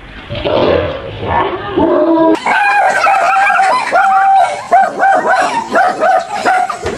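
A frightened dog barking and yelping, the calls coming fast and high-pitched in a quick run from a little over two seconds in.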